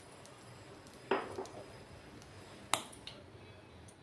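Hot mustard oil in a wok spitting with a few sharp pops, one about a second in and another sharper one near three seconds.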